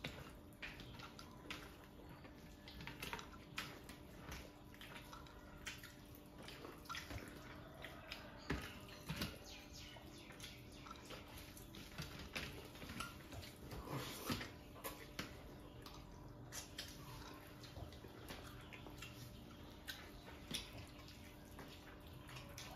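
Wet squelching and smacking of bare hands mixing rice with fish curry on metal platters, with chewing and lip smacks as mouthfuls are eaten; many small irregular clicks over a faint steady hum.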